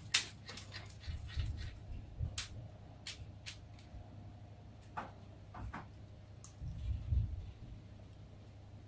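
Rubber-gloved hands handling soft bread dough: scattered faint clicks, squishes and rubbing as dough balls are rolled and pressed onto a parchment-lined baking tray, with a few soft thumps, the clearest about a second and a half in and around seven seconds.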